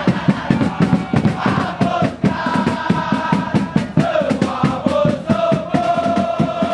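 A large crowd of football supporters singing a chant together, with long held sung notes that shift between phrases over a quick, steady beat.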